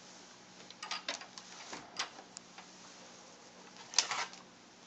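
Handling noise as a replacement laptop screen panel is picked up: a few short rustles and clicks, with a louder cluster near the end, over a faint steady hum.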